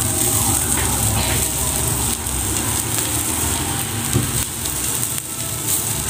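String beans and chicken pieces sizzling steadily in a wok over an open wood fire, with a few faint crackles from the fire.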